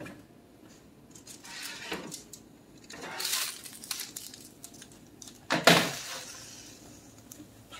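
Metal sheet pan being pulled out of an oven across the wire rack: a few light clicks, a scraping rattle about three seconds in, then one sharp metal clank a little past halfway that rings briefly.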